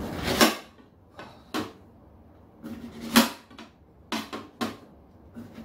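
Kitchen knife knocking against a ceramic plate while slicing a peach: several short sharp clacks at uneven intervals, the loudest about three seconds in.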